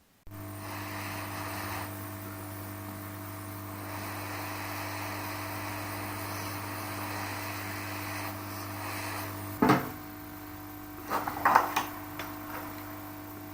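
A steady electrical hum with a hiss over it cuts in abruptly. About ten seconds in there is a sharp knock, then a short run of clicks and knocks from small things being handled on a workbench.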